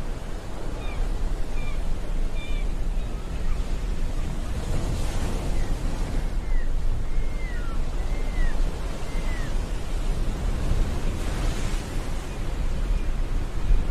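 Ocean surf ambience: a steady wash of waves that swells louder now and then, with a scattering of short, high chirps through the first part.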